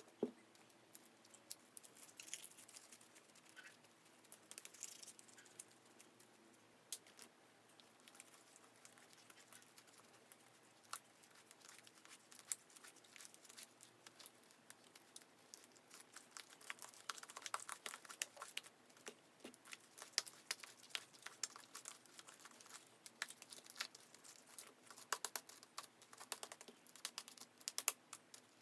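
Clear slime being mixed and worked, giving faint irregular sticky clicks and crackles that grow denser in the second half; the slime is still tacky and full of air bubbles from the activator.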